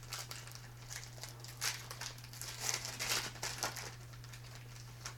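Foil wrapper of a football trading-card pack being torn open and crinkled: a run of irregular rustling bursts that dies away after about four seconds.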